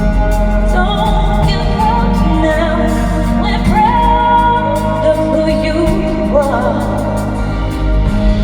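Live band music with a singer carrying a slow melody over sustained chords and a steady bass, with regular percussion ticks throughout.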